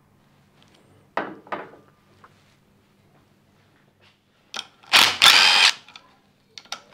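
Handheld power driver whirring in two quick bursts about five seconds in, spinning out bolts during an engine teardown. A couple of light clicks come about a second in.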